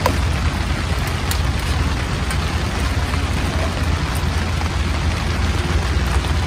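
Steady rain on the tent canopy, an even patter and hiss over a low rumble. Right at the start a spoon clinks once against a titanium mug.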